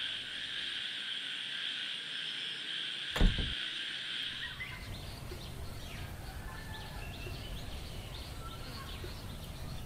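Steady drone of night insects such as crickets, broken by one sharp knock about three seconds in. Midway the drone gives way to the scattered chirping of morning birds.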